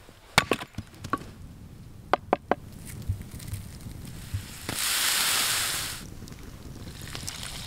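Sharp wooden knocks and cracks of split firewood being handled: a couple, then three in quick succession. These are followed about five seconds in by a loud hiss lasting just over a second.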